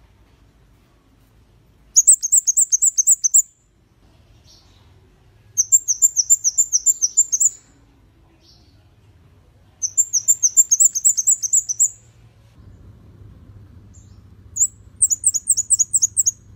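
Flowerpecker (kemade kepala merah) singing: four fast runs of high, thin notes that each slide downward, about ten notes to a run, with a few seconds' pause between runs.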